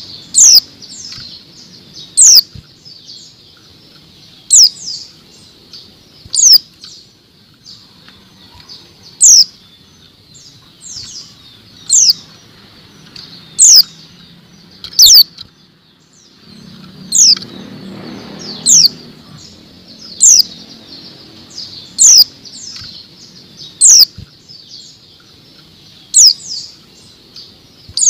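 A female white-eye (pleci) giving single, sharp, high chirps that each sweep quickly downward in pitch, repeated about every one and a half to two seconds.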